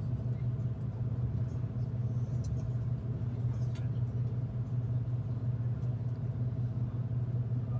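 Inside a moving V/Line diesel passenger train: a steady low rumble of the engine and the wheels running on the track, with a faint steady hum above it.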